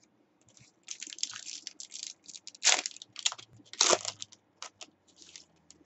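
Foil trading-card pack wrapper crinkling and tearing as a pack is opened and handled. It comes as irregular crackles, with two louder crunches a little under three seconds in and about four seconds in.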